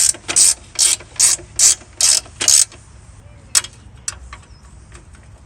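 Socket ratchet wrench being swung back and forth on a bolt, about seven quick ratcheting strokes, then one more click about a second later.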